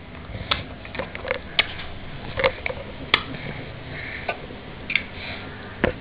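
A baby sucking on a lemon wedge and smacking its lips, a string of irregular wet clicks, about ten over six seconds.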